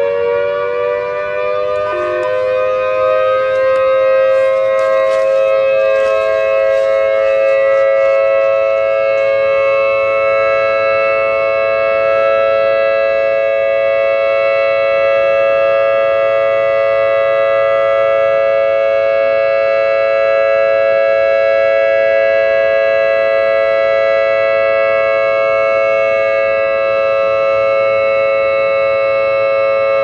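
Federal Signal Thunderbolt civil defense siren with a 5/6-port chopper sounding the steady Short Alert signal: a chord of several tones that finishes winding up and settles about a second in, then holds steady and unchanging, the horn not rotating. A few faint crackles sound over it in the first several seconds.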